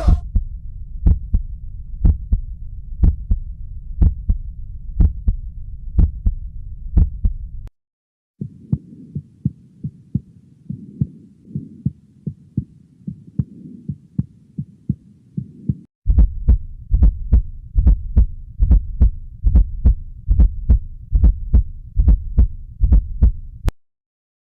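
Recorded heart sounds heard through a stethoscope, played as three separate examples with short breaks between them: first a slow, regular beat of about one per second, then a softer beat with a steady hiss filling the gaps, then a faster beat that stops abruptly near the end.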